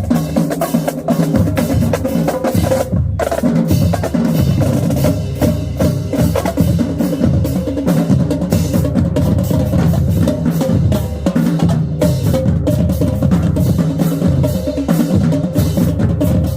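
Marching band drumline playing a fast, continuous cadence, with snare drums rolling over pounding bass drums and a brief break about three seconds in.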